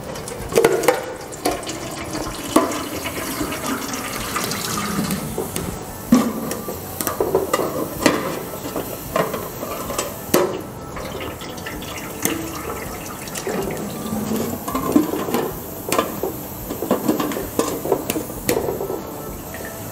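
Water poured from a plastic measuring jug into a metal steamer pot, splashing and gurgling as the pot fills, with a few sharp knocks along the way.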